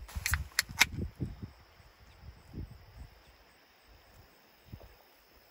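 A few sharp clicks in the first second as an aluminium drink can is handled and cracked open, then a faint steady high insect trill over scattered low rumbles.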